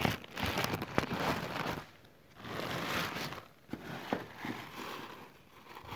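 Thin plastic bag crinkling and rustling in bursts as it is handled to unwrap a tractor foot-throttle pedal, with a few sharp clicks.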